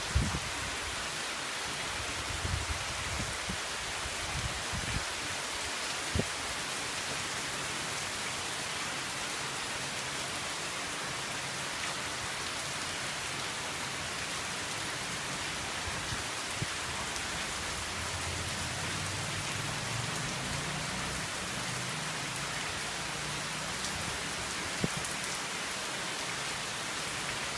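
Steady heavy rain falling on a tiled courtyard and trees, with a few sharp taps here and there.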